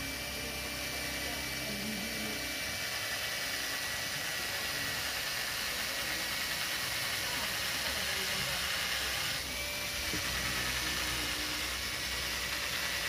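Electric drill running steadily, spinning a laminated rod handle on a steel rod. The sound dips briefly about nine seconds in.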